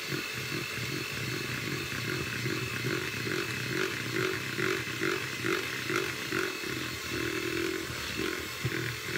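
Hand-held electric mixer running on low speed, its beaters churning a thin cake batter in a plastic bowl. A steady motor whine with a rhythmic swishing about twice a second.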